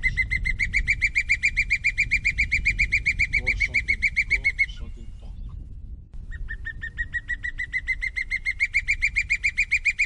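A hawk calling: a rapid, even series of high piping notes, about seven a second, rising slightly in pitch. The series breaks off about five seconds in and starts again a second and a half later.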